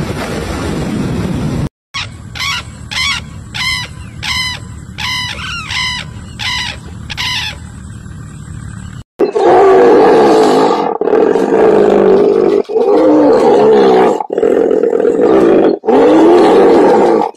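A rushing water-like noise, then about ten short, high sweeping calls at a steady pace, then five long, loud animal calls with a wavering pitch, each broken off by a short gap.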